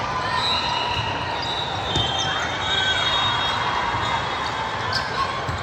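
Volleyball game noise in a gym: sneakers squeaking on the court and a couple of thuds of the ball being hit or bouncing, over a steady murmur of crowd voices.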